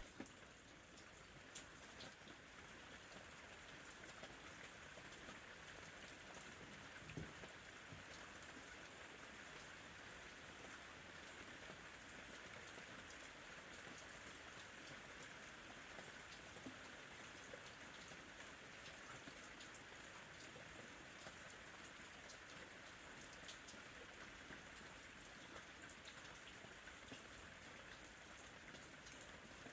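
Soft, steady rain with scattered light drop taps, faint.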